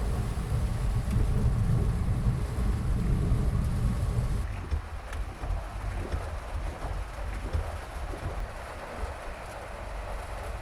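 Steady rain with a heavy low rumble underneath; the rumble drops away sharply about four and a half seconds in, leaving the rain hiss.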